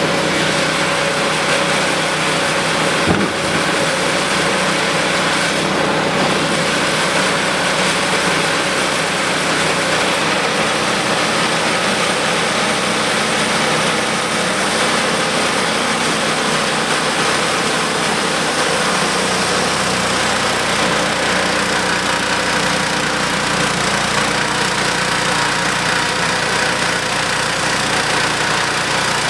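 Wood-Mizer LT10 portable band sawmill running steadily, its small engine driving the band blade through a sweet gum log. One sharp knock stands out about three seconds in.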